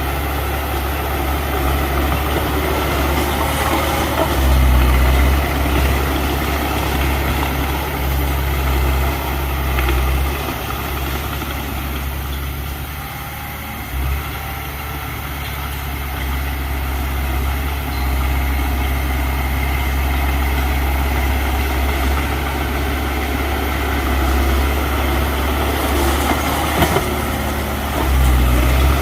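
Heavy diesel engine running steadily, swelling and easing with load. The level dips briefly about halfway through, and a few sharp knocks come near the end.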